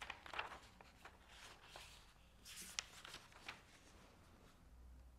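Faint rustling of book pages being leafed through, in a few short bursts with light taps and clicks, the loudest about halfway through.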